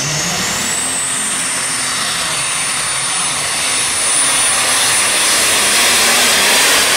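Diesel pulling tractor running flat out as it hauls the sled, a dense engine noise carrying a high turbocharger whine that climbs in pitch until about a second in and then holds steady. The engine gets a little louder around four seconds in.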